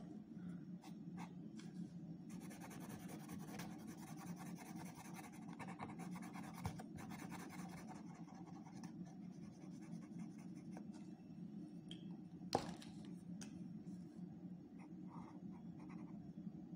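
Felt-tip sketch pen scratching in quick strokes as it colours a wooden ice-cream stick figure, over a faint steady hum, with one sharp tap about three-quarters of the way through.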